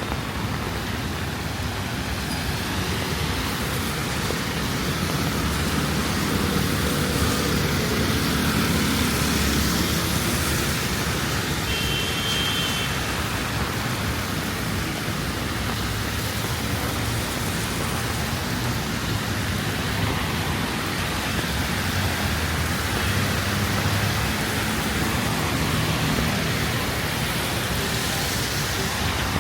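Steady rain hissing over city traffic, with a vehicle engine hum that swells and fades as traffic passes.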